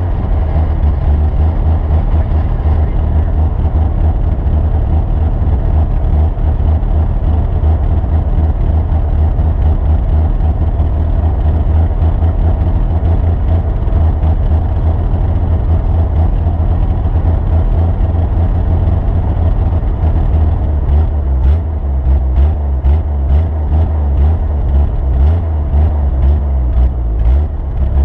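Vehicle engine running steadily under a heavy low rumble, with a run of sharp clicks or knocks over the last several seconds.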